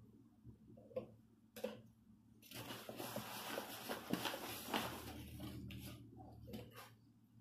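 Two light knocks about a second in, then several seconds of rustling and scraping as a measuring cup scoops flour out of its bag, and a few more soft knocks near the end.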